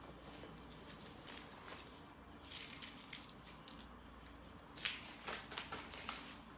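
Faint rustling and a scatter of light clicks and knocks, as of things being handled, over quiet room tone. The noises come in two clusters, near the middle and again toward the end, where the sharpest click falls.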